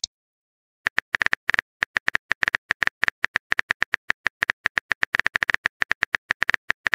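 Phone keyboard typing sound effect: rapid light taps, about ten a second, starting about a second in.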